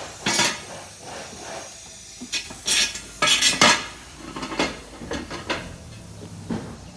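Metallic clinks and rattles from a motorcycle wheel bearing and its metal parts being handled: a string of sharp, separate knocks with short ringing, most of them close together around the middle.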